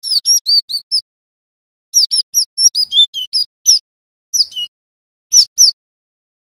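Male cinereous tit (gelatik batu) singing: quick runs of short, sharp whistled notes, each dropping in pitch, in four groups separated by pauses of about a second.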